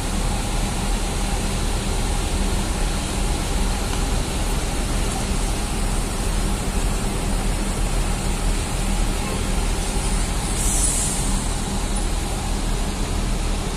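Intercity buses' diesel engines idling: a steady low drone with a faint traffic hum. A short hiss comes in about eleven seconds in.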